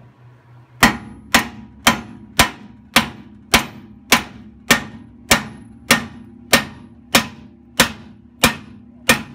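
A big hammer strikes a steel nut threaded flush on a Porsche 914's rear axle shaft, driving the shaft out through the hub. There are about fifteen steady blows, roughly two a second, starting about a second in, each with a short metallic ring.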